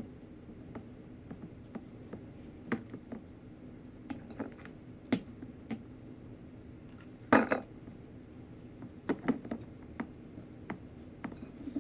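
Scattered light knocks and clinks as a glass vase is handled and rope is glued around it, with a louder knock about seven and a half seconds in.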